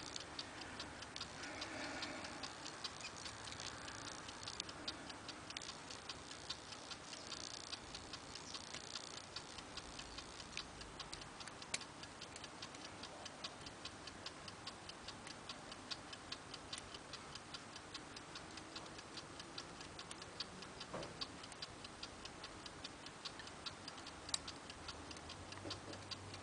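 Faint picking of a Squire 440 four-lever padlock: soft scraping and small clicks of the pick and tension tool against the levers. Under it runs a steady, even ticking, about four a second.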